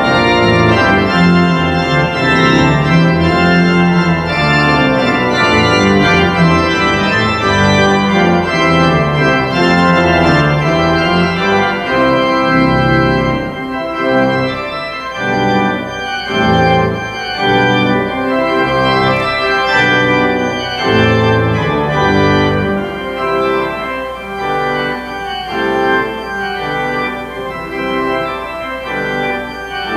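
Organ playing sustained chords over a moving bass line; about three-quarters of the way through, a low bass note begins to be held underneath the chords.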